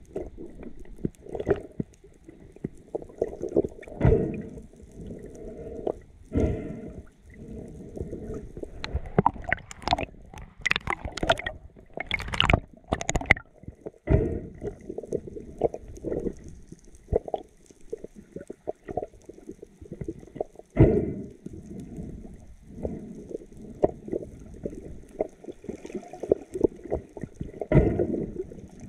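Water gurgling and sloshing around an underwater action camera during a spearfishing freedive, with irregular sharp knocks and a cluster of crackling bursts from about nine to thirteen seconds in.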